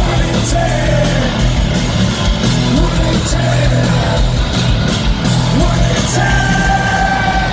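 Rock band playing live in a stadium, with bass, drums, guitars and a lead singer, heard from within the crowd. The vocal holds a long note near the end.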